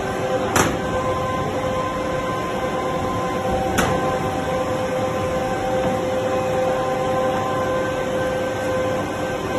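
Steady machinery hum with several held tones from a 3300-ton plastic injection molding machine standing open, broken by two short sharp knocks, about half a second in and near four seconds in.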